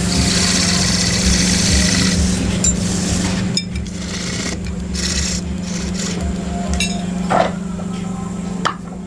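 Wood being scraped by hand with an abrasive tool, a rough rasping sound over a steady low machine hum. The scraping stops about three and a half seconds in, leaving the hum and a few light knocks.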